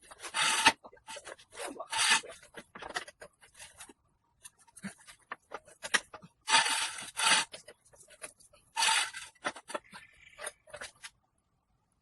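A series of irregular rubbing and scraping strokes, each under a second long, with short gaps between them.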